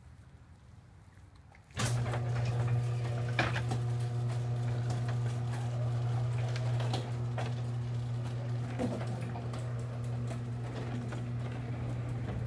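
Electric garage door opener starting about two seconds in and running steadily: a motor hum with the door rattling and clicking as it lowers.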